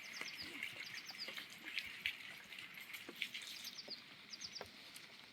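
A small bird singing short phrases of three or four quick, high, falling notes, repeated several times, over a faint outdoor hiss with scattered clicks.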